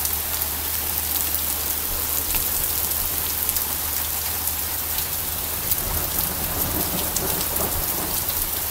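A hailstorm with rain: a steady hiss of rain and hail pelting grass and ground, dotted all through with many sharp little ticks of hailstones striking.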